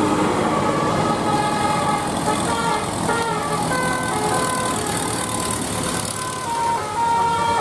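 Bus telolet horn, a Basuri multi-tone horn, playing a tune of held notes that step from one pitch to another, over steady traffic noise.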